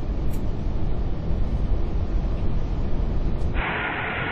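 Steady low rumble of engine and airflow noise in an Airbus A380 cockpit on short final. About three and a half seconds in, a thin radio-like hiss switches on over it, like an open radio channel.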